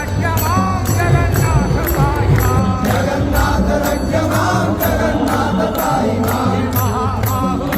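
Group devotional chanting with hand cymbals struck about twice a second over steady drumming.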